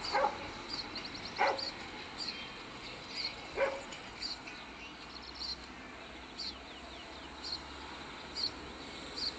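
Three short yelping calls: one at the start, one about a second and a half in, and one at about three and a half seconds. Under them runs a steady series of faint high chirps from small birds, about one a second.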